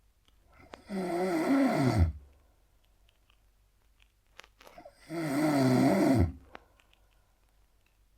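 A man snoring intensely: two long snores about four seconds apart, each dropping in pitch as it ends, with faint small clicks between them.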